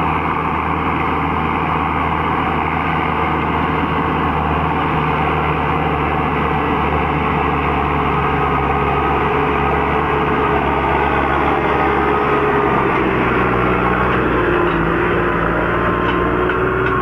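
New Holland T5060 tractor's diesel engine running steadily under load as it pulls a Lemken stubble cultivator, its note rising slightly and getting a little louder as it comes close from about twelve seconds in. Light clicks and rattles from the passing implement near the end.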